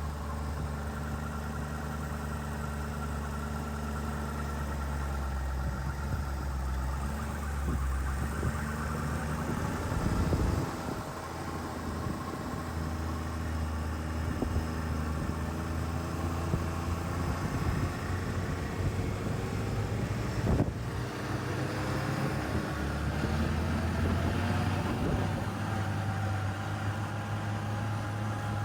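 A vehicle engine running steadily, its pitch drifting up and down, with a sharp knock about two-thirds of the way through.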